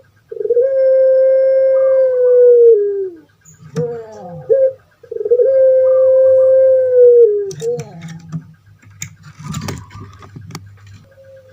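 Puter pelung (Barbary dove, Streptopelia risoria) cooing: two long, steady, low coos of about two and a half seconds each, with short notes between and after them. A few sharp clicks follow near the end.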